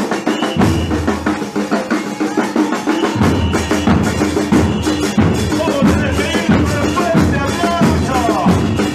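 Murga street percussion: bombos con platillo (bass drums with a cymbal mounted on top) and other drums beating a fast, driving rhythm. Voices come in over the drumming in the second half.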